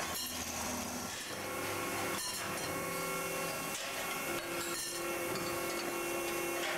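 Workshop machinery running with a steady hum and whine while a steel tube is worked on a tube-forming machine, with a few short metallic knocks.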